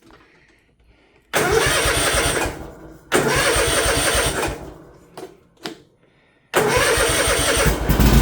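Kawasaki FR691V V-twin mower engine cranked by its electric starter three times: two cranks of about a second and a half each with pauses between, then a third that catches and keeps running near the end. The engine has just been fitted with new ignition coils to cure a misfire and hard starting.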